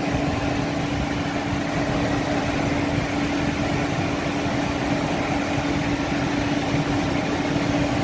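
Indoor blower of a home heat pump system running steadily: even airflow noise with a constant low hum.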